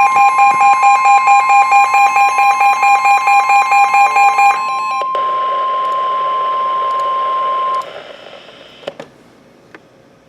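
NOAA Weather Radio 1050 Hz warning alarm tone: one loud, steady, high-pitched tone that stops about eight seconds in. For roughly the first four and a half seconds, rapid electronic beeping of several pitches pulses over it, about five beeps a second, and then a hiss of static sits under the tone until it ends. It signals that a warning message is about to be read.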